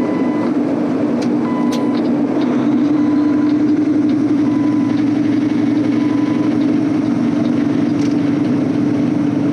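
Semi-truck diesel engine running with a steady drone. A faint beep sounds briefly every second or so.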